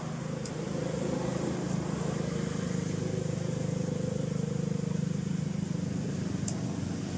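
A motor vehicle's engine running steadily nearby, a low, even drone.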